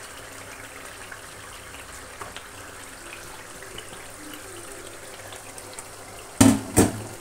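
Tomato-onion gravy simmering in a karahi, a steady bubbling hiss. Two sharp knocks close together about six and a half seconds in.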